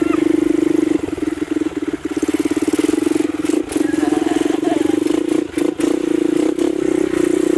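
Motorcycle engine running at a steady speed, heard from the pillion seat while riding over a dirt track. Several sharp knocks and rattles come from about three to six seconds in.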